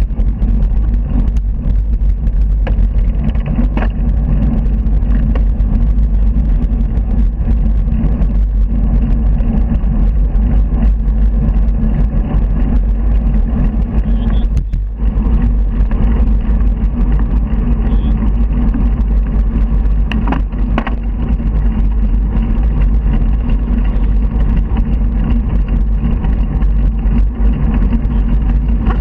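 Steady, loud wind rush on the microphone of a handlebar-mounted camera while riding, heaviest in the low end, with the sound of cars passing close by.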